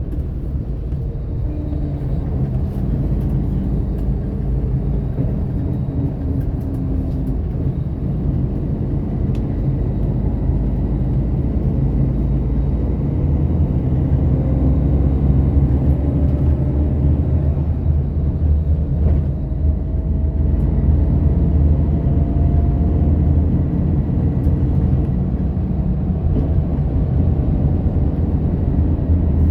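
A bus running at speed: a steady low engine and road rumble, with a faint whine that slowly rises in pitch through the middle.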